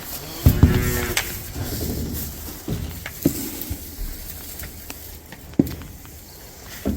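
A cow mooing once, a short call of about a second, followed by scattered knocks and clatters.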